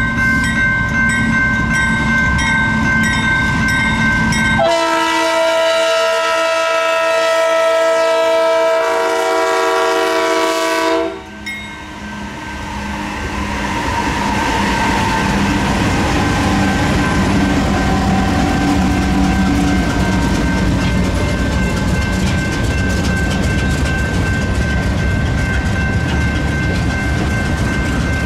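Crossing bell ringing as a BNSF GE Dash 9 locomotive approaches. About four and a half seconds in, its RS3K air horn sounds one long chord of about six seconds and cuts off. The locomotive then rumbles past and loaded ballast hopper cars roll by, wheels clicking over the rail joints.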